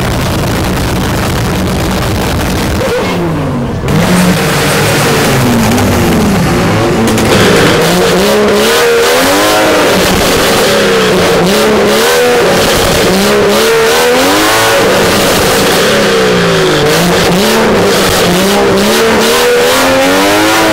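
A car engine running steadily, then from about four seconds in a parked Vauxhall hatchback's engine revved up and down again and again in quick blips, with sharp crackles among the revs.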